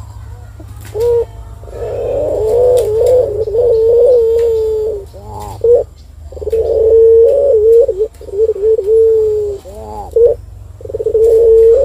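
Puter (Barbary dove) cooing: a series of long, wavering, rolling coos, broken by short quick rising-and-falling notes about halfway through and again near the end.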